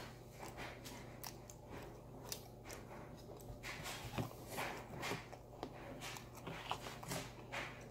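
Close-up chewing and crunching of vanilla cookies eaten with ice cream: a run of irregular crisp crunches.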